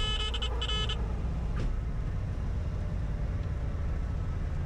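Cabin sound of a 1966 Cessna 172's 180-horsepower piston engine running at low power during the rollout after landing, a steady low drone. A high buzzing tone sounds for about the first second, then cuts off.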